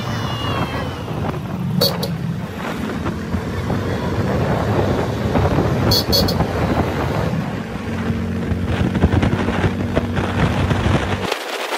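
Wind buffeting the microphone over the steady running and road noise of a vehicle on the move, with short high-pitched beeps about two seconds in and again about six seconds in. The rumble cuts off just before the end.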